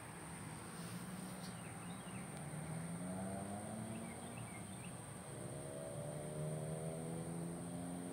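A vehicle engine accelerating, its pitch rising slowly twice, as if pulling away and shifting up, with a steady high-pitched whine throughout.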